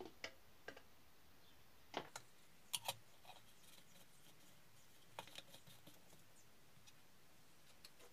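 Light plastic clicks and knocks as a funnel is lifted off a clear plastic water reservoir and a plastic screw lid is put on and turned. The sharpest knocks come about two and three seconds in, with another small cluster a little after five seconds.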